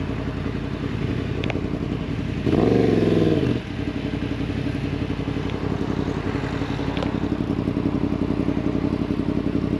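Motorcycle engine running as the bike rides slowly through town. About two and a half seconds in, a short throttle rev makes the engine note rise and fall over roughly a second.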